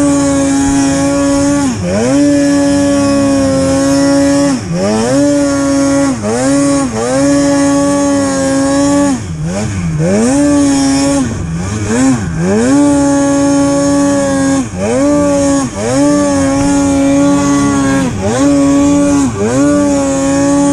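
Mountain snowmobile engine revving hard under load in deep powder, held high at around 7,000 to 8,400 rpm. The pitch dips briefly and climbs back up again and again, each time the throttle is eased and reapplied.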